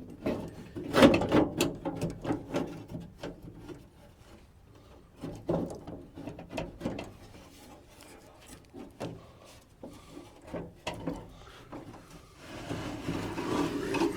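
Loose metal parts inside a 1963 Chevrolet C10 truck door clunking, scraping and rattling as a part is worked out of the door shell by hand. The knocks are irregular, busiest at the start, sparse in the middle and building again near the end.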